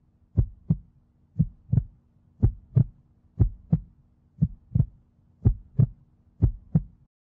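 Heartbeat sound effect: a steady lub-dub double thump about once a second, seven beats, over a faint low hum. It cuts off abruptly near the end.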